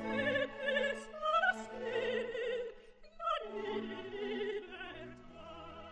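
Background music: an operatic voice singing with strong vibrato over a string accompaniment, fading out near the end.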